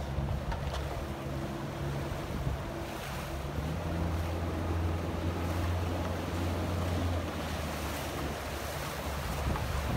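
Outboard motor of an inflatable coach boat running steadily under way, its hum growing louder from about 3.5 s to 7 s, with wind buffeting the microphone and water rushing past the hull.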